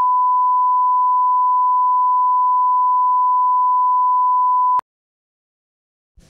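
Steady 1 kHz line-up test tone played with broadcast colour bars, a single unwavering beep at constant level that cuts off abruptly about five seconds in.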